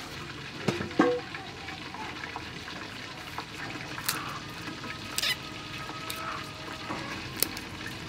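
Garlic cloves being peeled by hand, the dry papery skins crackling, with a few sharp clicks as cloves are set down on a wooden chopping board. A louder knock comes about a second in.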